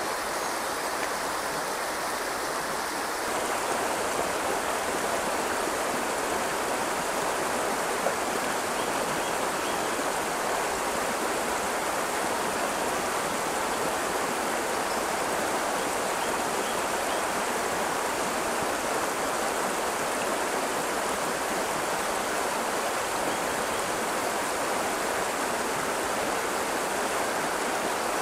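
Shallow river water running over rocks, a steady rushing. Its character shifts slightly about three seconds in.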